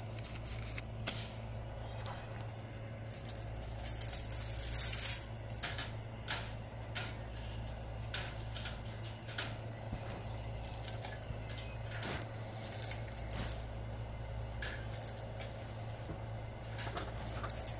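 Metal roofing screws with hex washer heads clinking and rattling against a wire-mesh screen and each other as they drop into the mesh holes. There is a loud flurry of rattling about four to five seconds in, then scattered single clinks.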